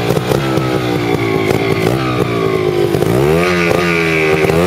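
Trials motorcycle engine running at a steady idle, then revved up and let back down about three seconds in, and rising again near the end.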